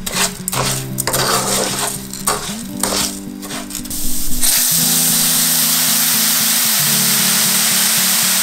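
Dry risotto rice stirred with a wooden spatula in a nonstick pan, the grains scraping and rustling in irregular strokes; from about four and a half seconds in, a steady sizzle as the rice toasts in hot oil. Background music plays throughout.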